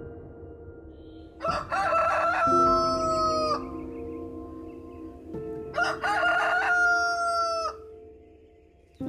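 A rooster crows twice, about a second and a half in and again about six seconds in. Each cock-a-doodle-doo begins with short choppy notes and ends in a long held note that falls slightly. Soft background music plays steadily underneath.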